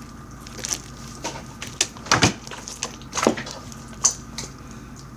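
Crunchy slime being squeezed and worked by hand, giving irregular crackles and pops, the loudest a little past two seconds in and again about a second later.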